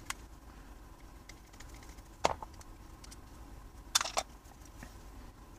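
Sharp clicks and knocks of an antique pistol's parts and a screwdriver being handled on a workbench mat during disassembly: a small click at the start, one louder knock about two seconds in, and a quick run of three clicks about four seconds in.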